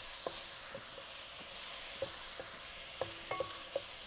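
Chopped onion sizzling softly in oil in a stainless-steel frying pan as it softens, stirred with a wooden spatula. Light knocks on the pan punctuate the sizzle, a few of them ringing briefly about three seconds in.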